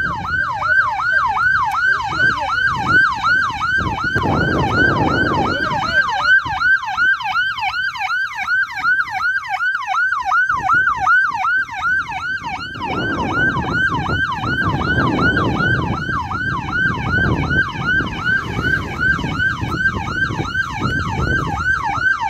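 Police siren in a fast yelp, one pitched tone sweeping up and down about two to three times a second without a break. A low, muffled rumble comes and goes beneath it.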